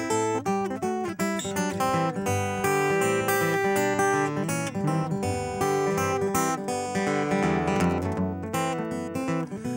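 Solo acoustic guitar playing an instrumental break of picked notes and strummed chords, with no singing.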